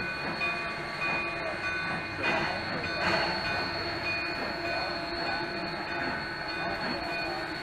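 Steam rotary snowplow train rolling slowly past on narrow-gauge track: steady mechanical running noise with several steady high-pitched tones over it.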